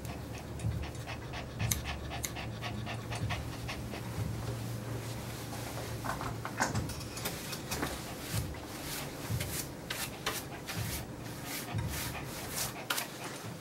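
Maltipoo panting while it is groomed, with scattered sharp clicks from the grooming tools over a steady low hum.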